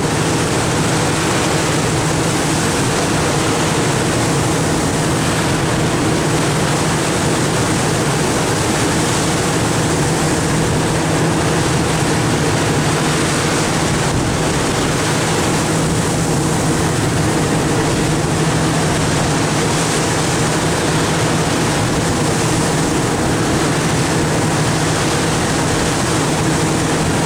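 A boat's engine running steadily at an even pitch, mixed with wind and rushing water.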